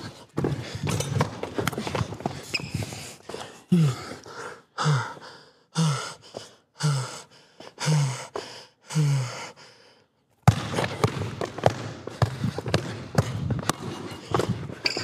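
Sounds of a one-on-one basketball game on an indoor court: scattered sharp clicks and knocks of feet and ball. In the middle come six short, low sounds about a second apart, each falling in pitch. About ten seconds in, the sound cuts to dead silence for half a second and then resumes.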